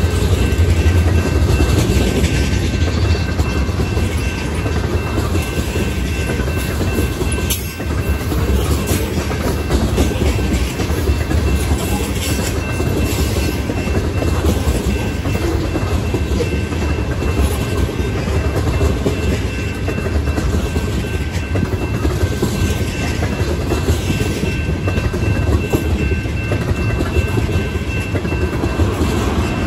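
Freight train tank cars rolling past close by: a steady rumble of steel wheels on rail with clickety-clack from the wheels crossing the rail joints.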